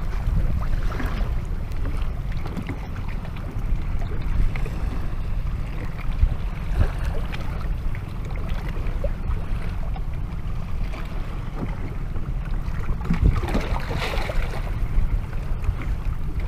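Wind rumbling steadily on the microphone, with choppy sea water washing around a small boat.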